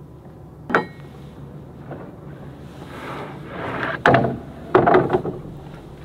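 Construction materials being handled on a deck: a sharp knock with a brief ring about a second in, then a scraping slide that builds into a run of loud clunks, as of long trim pieces being shifted and set down on the decking.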